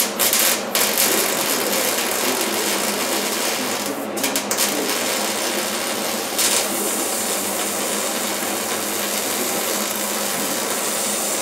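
MIG welder laying plug welds in the steel inner panel, a steady crackling sizzle. It starts in a few short bursts, breaks off briefly about four seconds in, then runs on.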